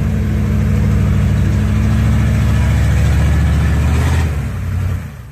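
Hummer's engine held at high revs, steady and loud, as it strains to climb out of a mud hole; about four seconds in the revs drop away as the driver lets off the throttle.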